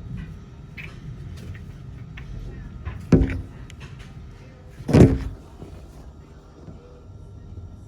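A door shut hard twice, two loud thumps about two seconds apart, over a steady low background rumble.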